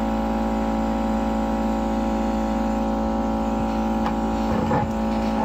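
Steady electrical hum of a hot air rework gun's blower running, with a few small clicks of tools on the phone about four seconds in.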